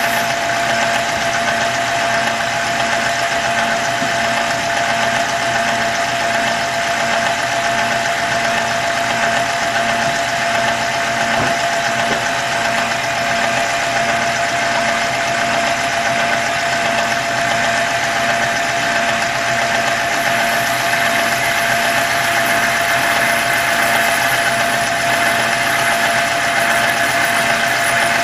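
Milling machine running steadily, its spinning cutter cutting teeth into a brass contrate wheel blank: an even mechanical whir with one constant tone.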